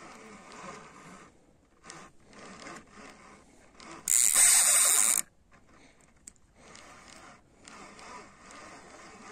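Small spinning reel (size 1000–2000) being wound in short spells as a small carp is brought in, its gears rasping. About four seconds in, a much louder rasping burst lasts about a second.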